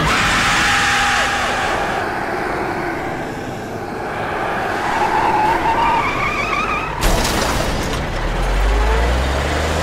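Cartoon vehicle sound effects: a loud, noisy rush with a wavering whine in the middle, changing abruptly about seven seconds in.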